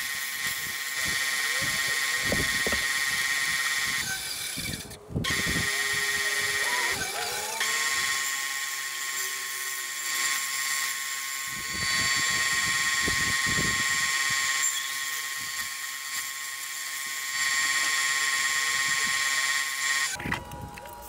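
Bandsaw running with a steady high whine as it cuts a strip of foam insulation board lengthwise, with scattered soft knocks from the board being handled. The whine breaks off briefly about five seconds in and stops shortly before the end.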